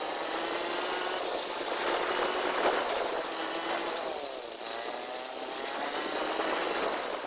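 Motorcycle engine running while the bike is ridden, its note dipping about four seconds in and climbing again, with a steady rushing noise underneath.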